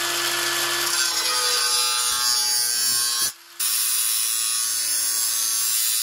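Angle grinder with a thin cut-off disc at full speed, cutting through a steel bar clamped in a vise: a steady whine under a harsh, hissing grind. The sound breaks off for a moment a little over three seconds in, then carries on.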